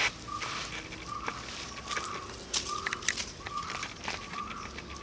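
A short animal call repeated about every two-thirds of a second, with scattered sharp clicks between the calls.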